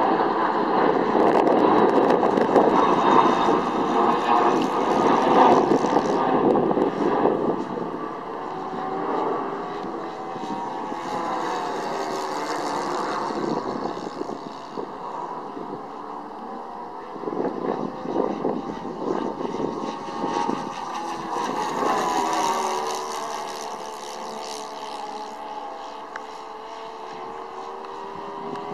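Saito 82 four-stroke glow engine of a radio-control model plane in flight overhead, its pitch sliding up and down as the plane manoeuvres. It is louder for the first seven seconds or so, then fainter.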